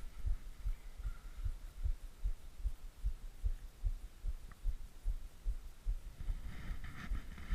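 Dull low thumps, about two or three a second, over a faint hum: footsteps jolting a body-worn GoPro.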